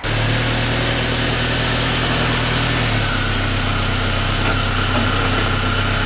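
A motor-driven machine running steadily: a low hum with a hiss over it, the hum shifting slightly about three seconds in.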